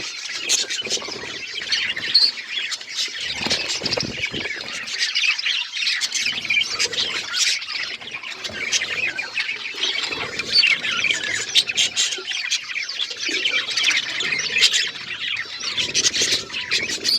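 A flock of budgerigars chattering and chirping continuously, with many short sharp clicks mixed in.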